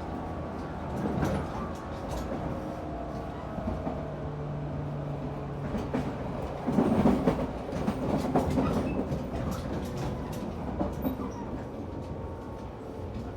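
JNR 113 series electric train running, heard from inside the motor car: a steady rumble of wheels on rail with clacks over rail joints, a steady hum for a couple of seconds in the middle, and a louder spell of rattling about seven seconds in.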